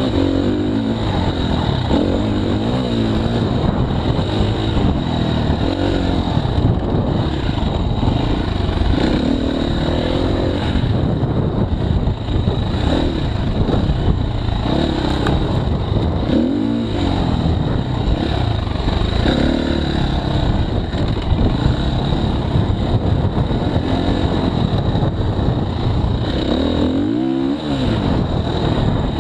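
KTM 350 XC-F dirt bike's single-cylinder four-stroke engine running under riding load, its pitch rising and falling again and again with throttle and gear changes, with a deeper drop and climb near the end.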